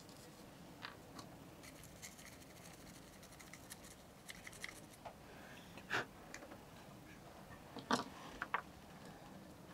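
Faint, scattered clicks and light taps of small parts being handled while a boat's circuit breaker is being repaired, with a sharper click about six seconds in and a few more close together around eight seconds.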